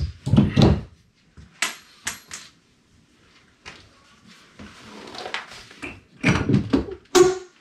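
Claw hammer pulling leftover nails out of the wooden framing of a stripped door opening: separate knocks, clicks and scrapes, with a few sharp metallic clicks in the middle and a louder cluster of knocks near the end.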